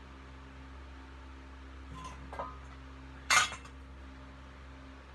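Metal objects clanking as they are handled and set down: two light clinks about two seconds in, then one loud short clank with a brief ring, over a steady low hum.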